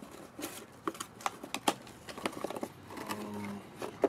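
Cardboard shipping box being opened by hand, its flaps pulled apart and handled, giving a string of sharp taps and scrapes. A short low hum comes in about three seconds in.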